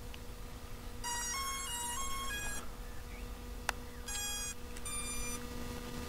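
Electronic start-up melody from a Hubsan Zino Mini Pro drone system being switched on: two short phrases of stepped beeping tones, with a single click between them.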